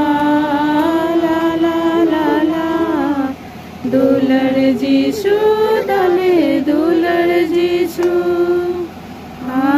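Singing: a slow melody in long held notes, sung in phrases with two short breaks for breath, about a third and near the end.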